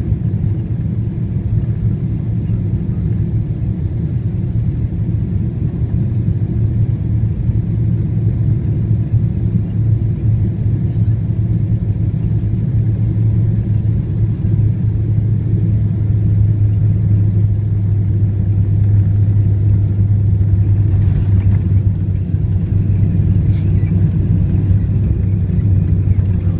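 Cabin noise of a Boeing 777-200 heard from a window seat over the wing during landing: a steady low rumble of engines and airflow. The rumble grows louder in the second half as the airliner touches down and rolls out with its spoilers raised.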